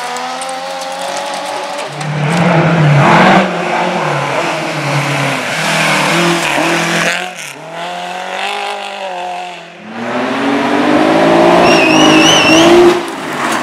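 Rally car engine revving hard on a minisprint course, rising and falling as it lifts off and picks up again between gears and corners, with a lull about ten seconds in before it pulls away. A brief wavering squeal sounds near the end.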